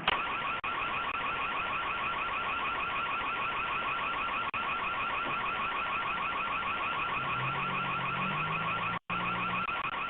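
Electronic security alarm siren sounding continuously as a high tone with a rapid regular warble, cutting out for an instant about nine seconds in.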